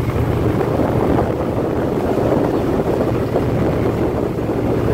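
Wind buffeting the microphone over the steady running of a Triumph Bonneville T120's parallel-twin engine as the motorcycle cruises along.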